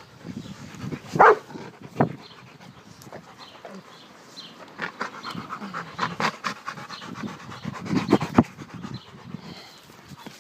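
Rottweilers panting hard close to the microphone, with a few loud short sounds about a second in, two seconds in and around eight seconds.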